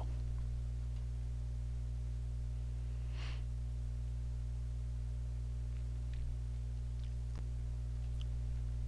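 Steady low electrical hum in the recording, with a faint breath about three seconds in and a few faint ticks near the end.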